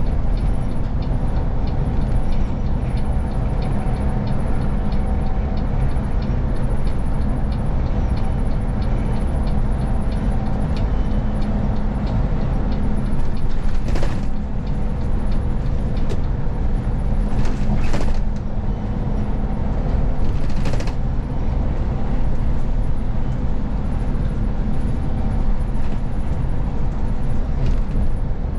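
City bus driving at motorway speed, heard from the driver's seat: a steady low drone of engine and tyre noise. A faint regular ticking runs through roughly the first third, and a few sharp clicks or rattles come around the middle.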